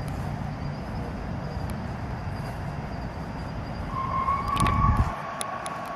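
A distant high-pitched squeal starts about four seconds in and holds one pitch for about two seconds, over a steady low rumble. Those who heard it could not agree whether it was a car squealing or a person screaming.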